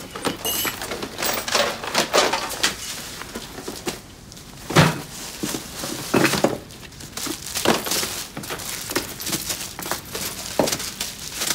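Rummaging through a pile of things: plastic bags and packaging crinkling and rustling, with irregular sharp knocks and clatters as items are thrown about.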